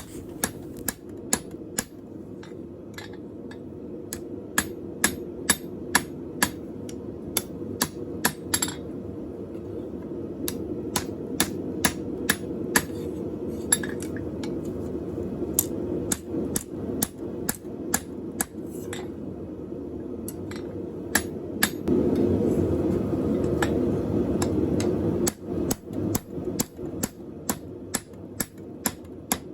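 Cross-peen hammer striking hot steel on an anvil: a run of sharp blows at about two a second, with a few short pauses. Under it, a steady low rushing noise grows louder for a few seconds about three-quarters of the way through.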